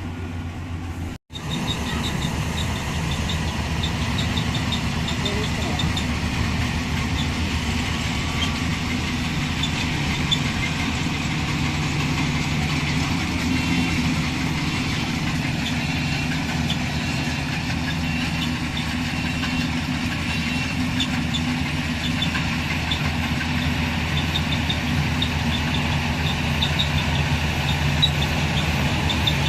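Combine harvester's engine and machinery running steadily at working speed. The sound breaks off for an instant about a second in.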